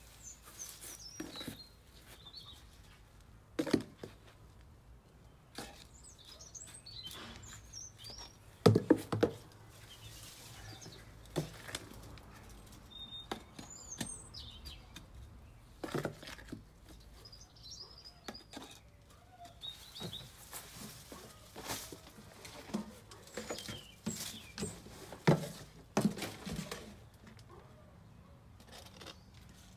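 Hand work with soil and a plastic crate: scattered knocks, thumps, rustles and scrapes as soil is scooped out and pressed into a pot, the loudest thump about nine seconds in. Small birds chirp now and then in the background.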